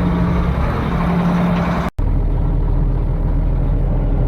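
Tractor engine running steadily under load with a constant low hum. The sound cuts out for an instant about two seconds in, then carries on duller, with less hiss.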